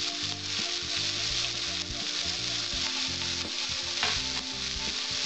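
Chopped red amaranth leaves (lal shaak) sizzling in hot mustard oil in a kadai: a steady frying hiss, with one brief clatter about four seconds in.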